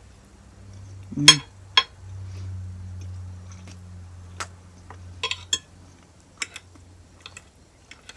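Cutlery clinking and scraping against a plate while eating, a handful of sharp separate clinks with the loudest about a second in. A low steady hum sits under most of it and stops near the end.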